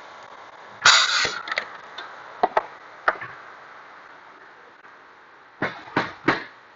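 A string of sharp wooden knocks and clatters as cabinet parts and hardware are handled at a hinge-drilling station: a louder rattling clatter about a second in, a few single knocks after it, and three quick knocks near the end.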